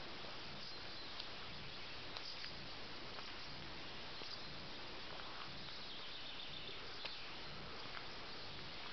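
Faint outdoor evening ambience: insects chirping softly over a steady hiss, with a few light clicks.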